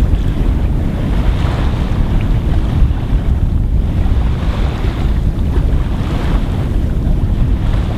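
Wind buffeting the microphone with a heavy rumble aboard a sailboat under way at sea, over the rush of water along the hull. The noise swells and eases in gusts.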